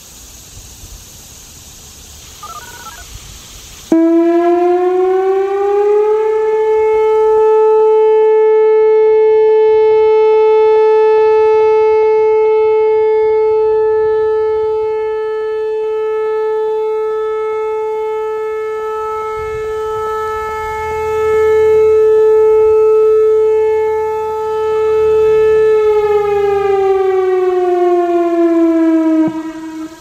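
Whelen WPS-4004 electronic speaker siren sounding a single-tone tornado-warning alert. About four seconds in it starts and glides up to a steady tone, holds for about twenty seconds with its loudness swelling and dipping as the horn array rotates, then glides down and cuts off near the end.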